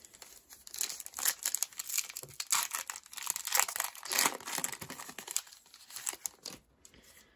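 Foil wrapper of a Panini Absolute football card pack being torn open and crinkled in the hands, an irregular crackling that thins out near the end.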